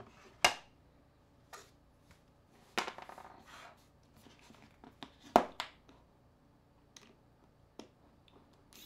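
A mobile phone's plastic casing and small parts being handled and pried apart on a tabletop: a handful of sharp clicks and taps, with a short rustle about three seconds in and the loudest click a little past halfway.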